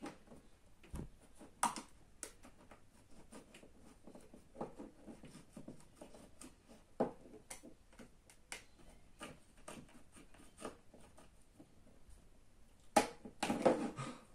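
Small irregular clicks and light scrapes of a prying tool working at the seam of an iPod Video's case, with a louder burst of clatter near the end.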